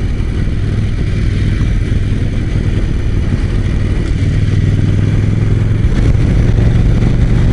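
KTM 790 Duke's parallel-twin engine running steadily while riding, heard over wind and road noise. The engine note rises slightly about six seconds in.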